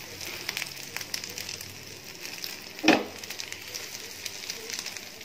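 Egg paniyaram batter frying in hot oil in a paniyaram pan: a steady sizzle with fine crackling ticks. One brief louder sound comes about three seconds in.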